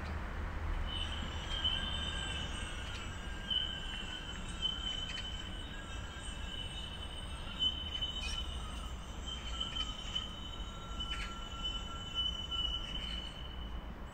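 Outdoor ambience: a long, thin, high-pitched squeal holds steady for most of the stretch, with a fainter lower tone under it. It begins about a second in and fades near the end, over a low rumble and a few faint clicks.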